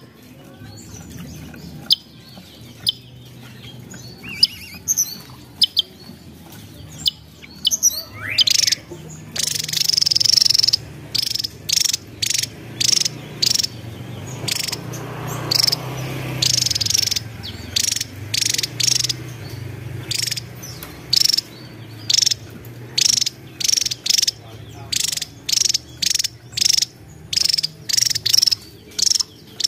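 Javan tesia singing: a few scattered high chirps at first, then, from about a quarter of the way in, a long run of short, sharp, high notes in quick groups.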